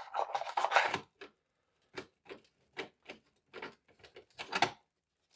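A rustle of handling at the start, then a series of short clicks and taps as a screwdriver works at the screws of a 1971 Mustang instrument cluster's housing.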